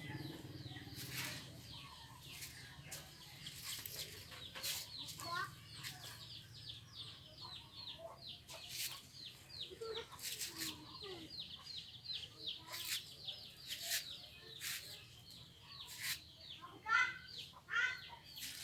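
Birds chirping, many short high falling chirps in quick succession, with scattered sharp clicks.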